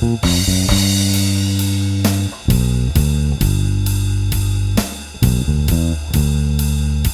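Electric bass guitar, a Bronco bass with a TV Jones Thunderblade neck pickup and DR Hi-Beam strings run through a Seymour Duncan Studio Bass Compressor, playing a bass line of long held low notes over a drum beat.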